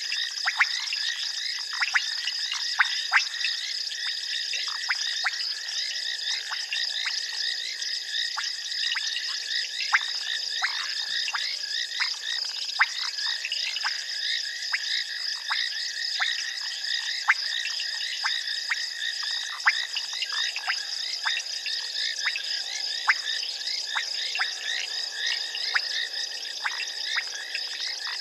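Night chorus of frogs: many short, sharp clicking calls, several a second, over a steady high-pitched drone.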